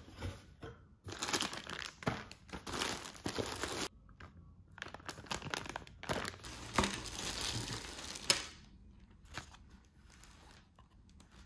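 Clear plastic poly bags crinkling and rustling as clothing is handled and pulled out of a shipping box, in bursts, with one sharp click about eight seconds in and quieter handling after.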